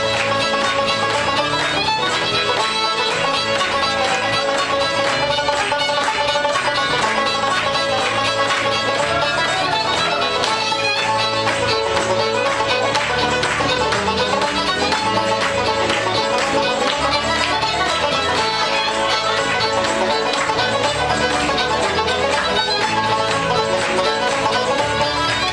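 Traditional Irish reel played live on banjo, fiddle, acoustic guitar and double bass: banjo and fiddle carry the melody over guitar chords and a steady bass pulse.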